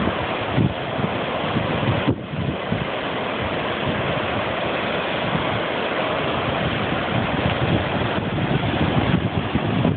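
Sea waves washing and breaking against the shore in a steady rush, with wind buffeting the phone's microphone in low gusty thumps.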